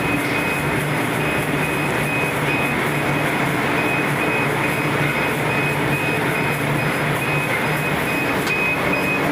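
Commercial popcorn-making line running: electric motors and gearboxes humming steadily while popped corn pours and tumbles into a stainless-steel tray, with a high tone pulsing on and off over it.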